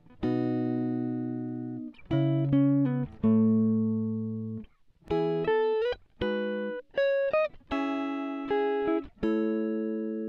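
Background music of plucked, guitar-like notes and chords, each struck sharply and fading away, played in short phrases with brief gaps between them.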